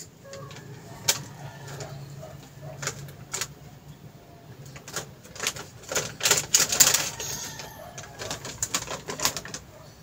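Scattered clicks and small metallic clatters from needle-nose pliers and a disposable lighter being handled while a kettle's bimetal thermostat part is heated in the flame, with a denser run of clicks about six to seven seconds in.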